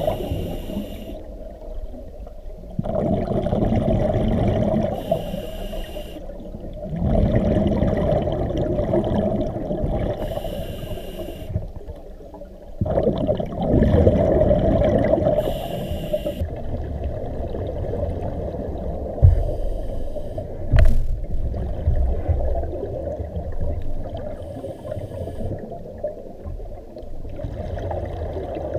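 Scuba diver breathing through a regulator underwater: a short hiss on each inhale followed by a longer gurgle of exhaled bubbles, about every five seconds. Two sharp knocks come about two-thirds of the way through.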